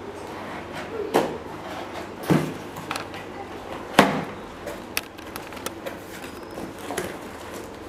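A cardboard shipping box being opened by hand: its flaps pulled and bent back, giving several sharp knocks and cracks of cardboard with smaller rustles between.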